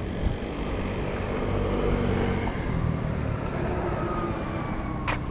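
A motor vehicle passing on the road. Its rumble swells about two seconds in, and a faint whine slides slowly down in pitch. A single sharp click near the end.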